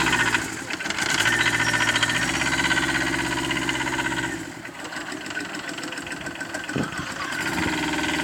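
Small engine of a 45 km/h microcar running steadily; it gets quieter about four and a half seconds in and louder again near the end.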